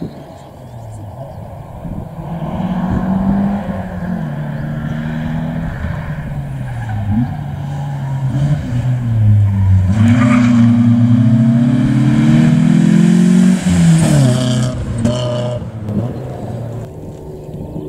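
Rally car engine driven hard on a special stage, the revs climbing in steps through gear changes as it comes closer. It holds high revs at its loudest, then drops sharply as the driver lifts off, with a few short cracks, and fades away.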